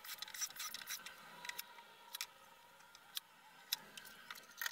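Irregular sharp clicks and taps of small metal hardware, screws and caster plates, handled on a plywood panel, with no drill running. A quick cluster comes right at the start, then single clicks about once a second.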